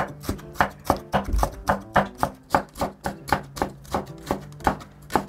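Wide-bladed kitchen knife slicing a red bell pepper into thin strips on a wooden cutting board: even, rapid chops of about four to five a second, each blade stroke knocking on the board. Light background music with plucked notes runs beneath.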